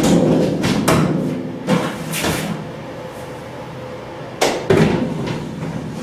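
Mastercraft metal wall cabinet knocking and clanking against its metal wall-mounting bars as it is lifted and hooked into place: a string of hollow knocks with a short ring, the loudest at the start and a pair about four and a half seconds in.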